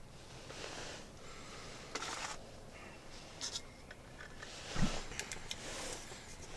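Handling noises at a small wood stove: short bursts of rustling and scraping, then a dull thump just under five seconds in and a few sharp clicks as the stove's door is worked open.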